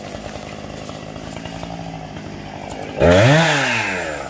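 Chainsaw idling, then revved hard once about three seconds in, its pitch rising quickly and falling back as the throttle is let off.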